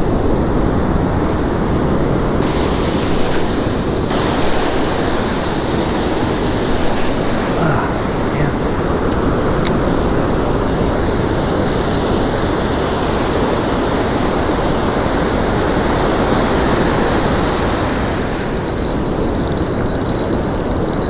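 Steady rush of waves breaking and washing up the beach, with wind rumbling on the microphone.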